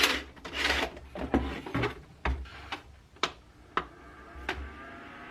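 Plastic parts of a portable dehumidifier being handled: a rustling scrape, then a series of sharp plastic clicks about half a second apart, as the dust filter and casing are worked. A faint steady whine sets in near the end.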